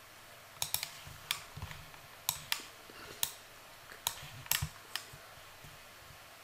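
Computer mouse clicking: about eight short, sharp clicks at irregular intervals, a couple of them in quick pairs.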